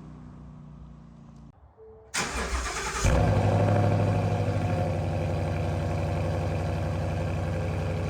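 Ford Mustang GT's 5.0 V8 with an aftermarket X-pipe and cat-back exhaust starting up: the starter cranks about two seconds in, the engine catches about a second later with a brief flare, then settles into a steady idle.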